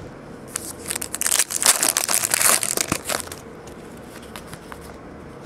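Crinkling of a trading-card pack wrapper being handled for about three seconds, a dense run of crackles and clicks that stops well before the end.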